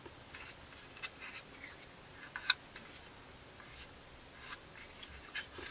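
Faint scattered clicks and rubbing as fingers handle and press along the glued seam of a plastic scale-model fuselage, with the sharpest tick about two and a half seconds in.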